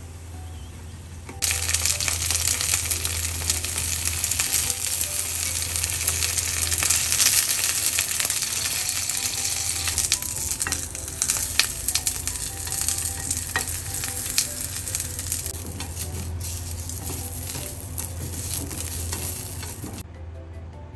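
Bell pepper pieces frying in oil in a frying pan with a loud, steady sizzle, and scattered sharp pops and clicks as they are turned. The sizzle starts suddenly about a second and a half in and cuts off about a second before the end.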